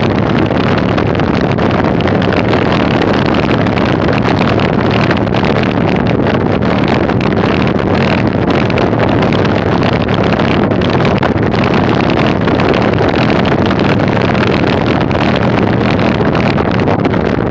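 Steady, loud wind rush on the microphone of a camera mounted on a bicycle, mixed with the bike's tyres rumbling over a gravel road.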